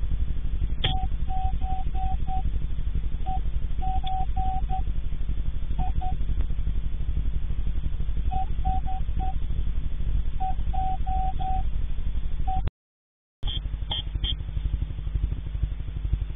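Low-fidelity audio from a surveillance camera's built-in microphone: a steady low buzzing hum with a fast, even pulse, overlaid by short mid-pitched beeps in irregular groups. The sound drops out for about half a second around two-thirds of the way through, then resumes.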